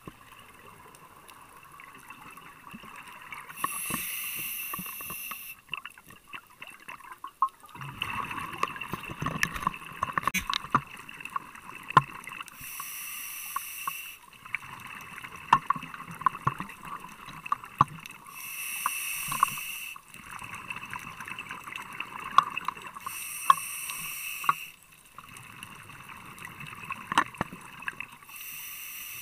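Scuba diver breathing through a regulator underwater. A hiss on each inhale comes about every five seconds, five times in all, and between them the exhaled bubbles gurgle and crackle.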